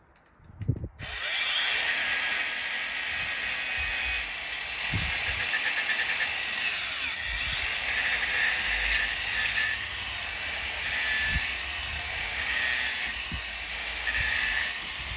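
Angle grinder cutting grooves into an aluminium T-bar: a high-pitched grinding that starts about a second in and rises and falls in stretches as the disc bites. There is a brief fast pulsing partway through.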